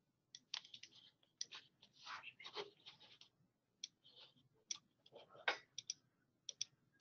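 Faint, irregular clicking and tapping from working a computer mouse and keyboard, many separate clicks with short gaps between them.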